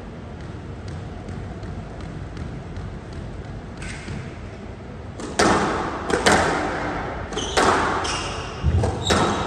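A squash rally: sharp cracks of racket on ball and ball off the walls, echoing in the hall. They begin about five seconds in, after a quiet lull, and come every second or so, with one deeper thud near the end.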